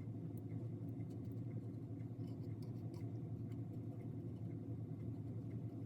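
Faint scraping and light ticking as thick Snow-Tex snow-texture paste is spread over a ceramic piece, over a steady low hum.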